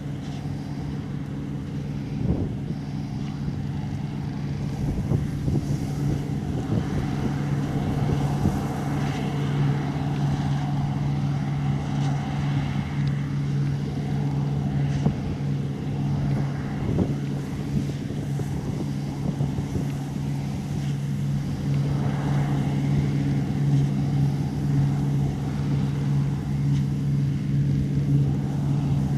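Large diesel engine of harvest machinery running steadily at constant speed, with some wind noise on the microphone.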